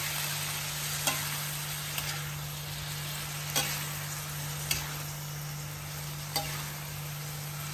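Prawns, onions and tomatoes sizzling in hot oil in a metal kadhai while a metal spatula stirs them. The spatula scrapes and knocks sharply against the pan about five times.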